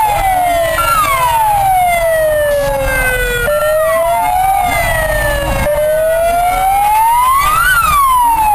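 Emergency vehicle siren wailing in slow sweeps, its pitch falling and rising over a couple of seconds at a time, with low street noise beneath.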